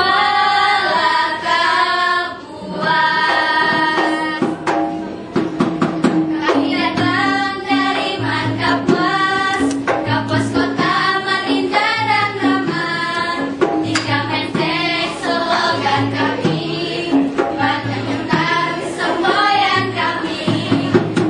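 A small group of girls singing a lively song together over a steady percussive beat and held low accompaniment notes.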